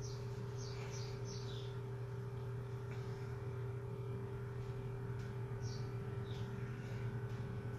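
A steady low hum runs throughout. Over it come faint bird chirps: short, high, falling notes in small clusters, near the start, again a little past the middle, and near the end.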